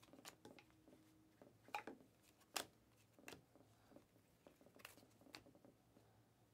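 Faint snaps and clicks of Panini Mosaic basketball trading cards being flipped through by hand, one sharp snap roughly every second as each card is slid off the stack.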